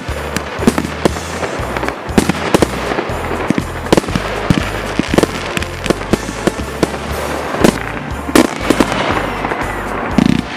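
Fireworks going off in a quick run of sharp bangs and crackles as small shells burst, mixed with background music that has a stepping bass line.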